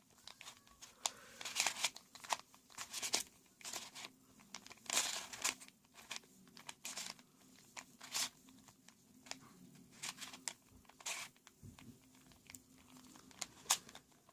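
Plastic Rubik's Cube look-alike puzzle being twisted quickly by hand to scramble it: an irregular run of short clicking, scraping turns of the cube's layers.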